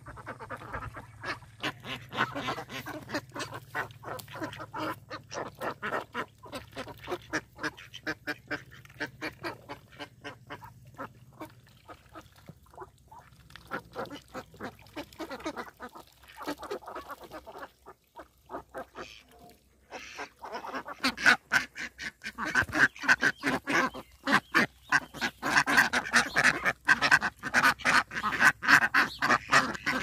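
A flock of domestic ducks, Indian runners among them, quacking in a constant chatter of short rapid calls. After a short lull about two-thirds of the way through, the calling grows louder and busier.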